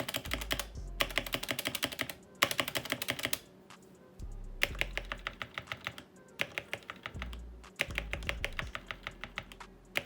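Typing on a Redragon K599 mechanical keyboard with Outemu Red switches: quick bursts of key clacks separated by short pauses, played as a sound test of the board.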